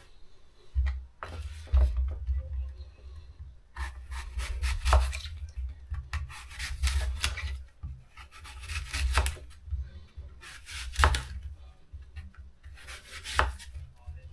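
A small knife cutting unpeeled eating apples into wedges on a wooden chopping board: about half a dozen separate cuts and scrapes of the blade through the fruit, with low knocks on the board.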